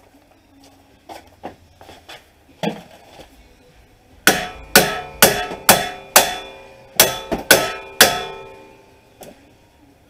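Hammer striking the end of a strut-to-knuckle bolt to drive it out of the front strut: a few light taps, then, about four seconds in, a run of about nine sharp, ringing metal strikes, roughly two a second.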